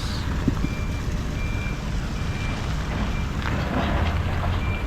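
A vehicle's reversing alarm beeping: a single high tone in short, evenly spaced beeps a little more than once a second, over a steady low rumble.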